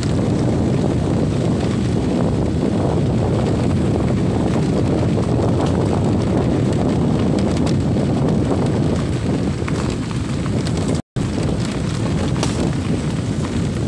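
Wind buffeting the microphone of a moving motorcycle, over the bike's rumble along a bumpy dirt track. It is a steady, loud noise that cuts out for an instant about eleven seconds in.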